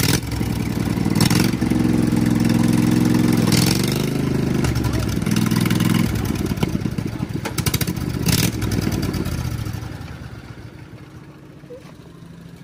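Mud mower's 25 hp Briggs & Stratton V-twin engine running and revved up twice, then dying away about ten seconds in, with a few sharp clatters. The drive belt has jumped off.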